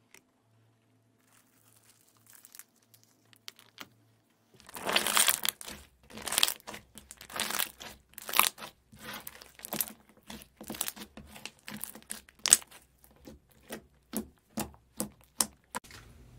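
Metallic slime being squeezed and kneaded by hand, giving a run of irregular wet crackling pops and clicks that starts about five seconds in. Before that only a few faint small clicks.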